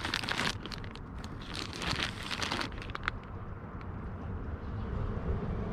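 Crinkling and rustling, as of plastic packaging being handled, for about the first three seconds, then quieter.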